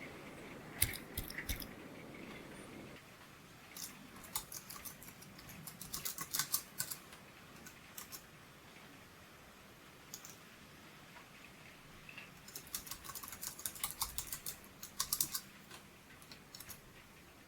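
Typing on a thin scissor-switch (pantograph) Bluetooth mini keyboard, the ELECOM TK-FBP102BK: quick runs of light key clicks with short pauses between, busiest near the end.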